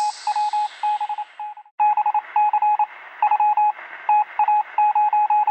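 A high shimmering wash fades out over the first second and a half. Then a single steady electronic tone beeps on and off in short and long pulses, in a Morse-code pattern, with a narrow, radio-like sound.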